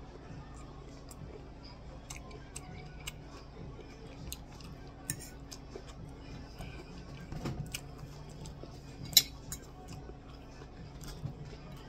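A metal fork clicking and scraping against a plate while a person chews crunchy cabbage, carrot and okra, over a low steady hum. There are scattered light clicks, a quick run of them around seven seconds in, and one sharp clink about nine seconds in, the loudest sound.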